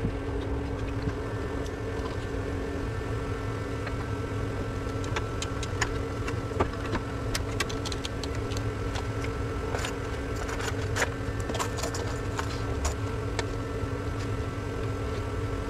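Light clicks and taps of wiring connectors being handled at the end of a Toyota Prius hybrid battery pack, scattered and irregular, over a steady mechanical hum.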